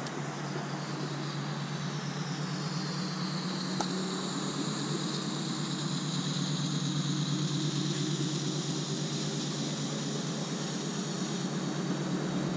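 A small Roundhouse live-steam locomotive, Russell, running past with its coaches: a steady mechanical hiss and hum with no distinct beats, the high hiss dipping slightly in pitch a couple of seconds in.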